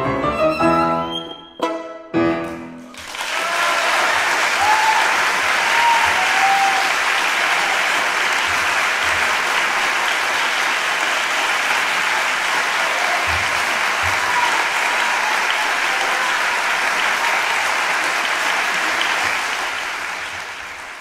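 Violin and Steinway grand piano play the final chords of a piece, ending with two short, sharp chords about two seconds in. The audience then bursts into steady applause that fades out near the end.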